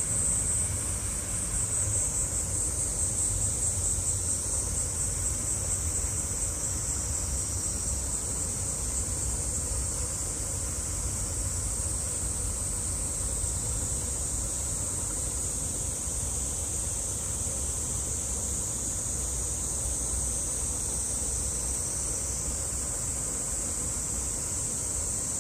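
A steady, high, sizzling chorus of summer cicadas, over a low rumble.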